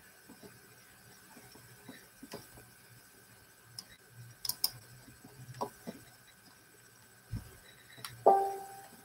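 Scattered small clicks and taps of objects being handled at a work table, with a low knock a little before the end. The loudest sound is a single clink near the end that rings briefly and fades.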